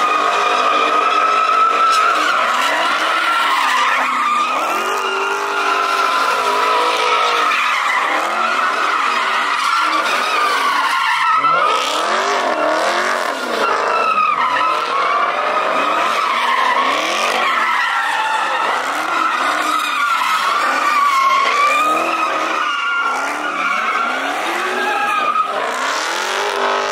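Car doing donuts: a steady, high tire squeal that wavers in pitch, with the engine revving up and falling back again and again underneath.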